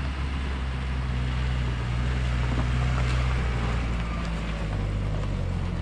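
Pickup truck engine labouring up a steep dirt track, getting louder as it draws close and passes. Its engine note drops a step near the end.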